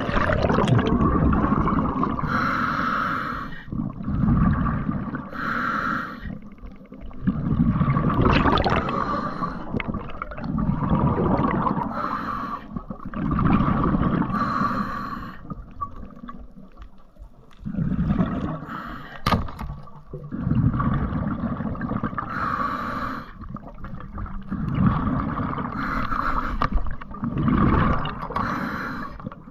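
Scuba regulator breathing heard underwater: a short hiss of inhalation through the regulator every few seconds, each followed by a longer, low, rumbling rush of exhaled bubbles.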